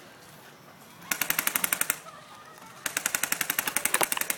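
Airsoft electric gun firing on full auto: a short burst of rapid, evenly spaced shots about a second in, then a longer burst starting near the end, about fifteen shots a second.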